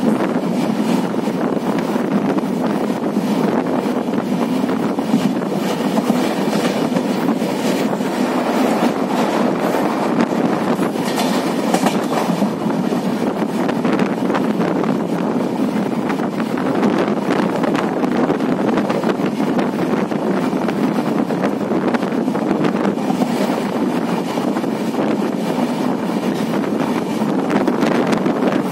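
Steady running noise of a moving passenger train, heard from an open coach window: the wheels rolling on the rails with scattered faint clicks, mixed with wind on the microphone.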